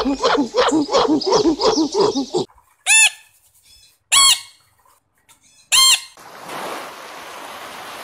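A rapid run of short, repeated calls for about two and a half seconds. Then come three loud, shrill squawks of a rainbow lorikeet, a second or so apart. After that, a steady hiss of surf washing in.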